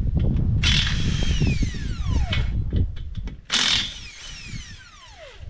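Cordless impact wrench with a socket, run twice on the wheel's lug nuts. Each run is a short high whir whose pitch then falls away over a second or two as the motor spins down, over a steady low rumble.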